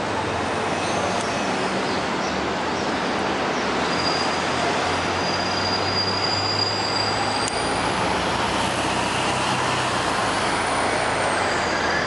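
Steady downtown street traffic noise, with the low hum of heavy vehicle engines. A thin high squeal sounds partway through, and another high whine rises and later falls away near the end.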